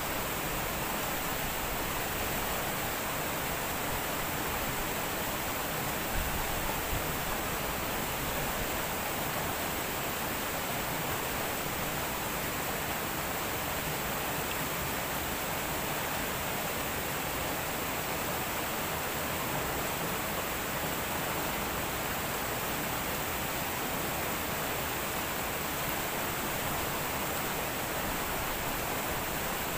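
Steady rushing of a shallow stream running over rocks, an even hiss-like wash that stays level throughout.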